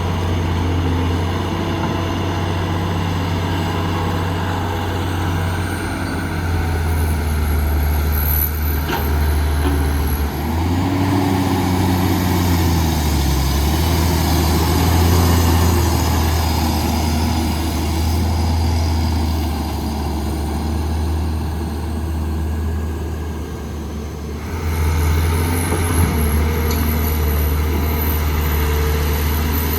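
Diesel engine of heavy construction machinery running steadily, its pitch sagging and recovering under load about ten to fourteen seconds in. A thin high whine rises and falls above it. The engine sound dips briefly and comes back strongly about five seconds before the end.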